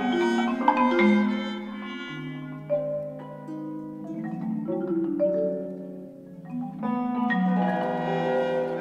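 Instrumental music: several held, pitched notes overlap and change every second or so, with a few sharp struck attacks. It grows quieter in the middle and swells again near the end.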